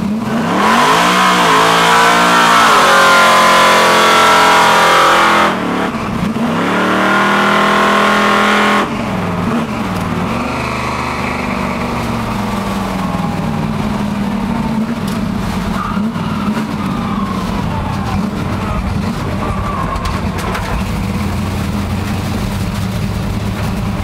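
Car doing a burnout, heard from inside the cabin: the engine revs hard with its pitch climbing, over a loud hiss of spinning tyres, in two long pulls with a brief dip between. About nine seconds in, the throttle is lifted and the engine drops to a low, steady run.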